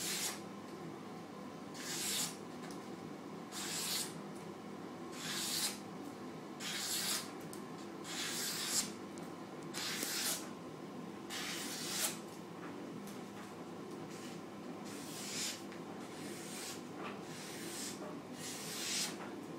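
A freshly sharpened bushcraft knife slicing through a sheet of paper again and again, a paper-cutting test of the edge: about a dozen short swishing cuts, roughly one every second and a half.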